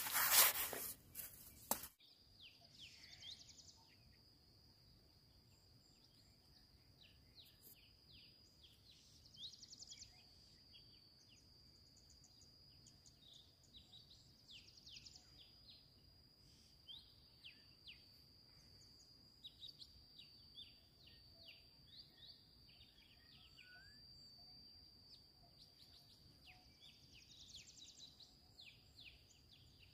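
Quiet outdoor ambience: birds chirping in short, scattered calls over a steady high-pitched whine. Loud rustling noise is heard for about the first two seconds, then cuts off suddenly.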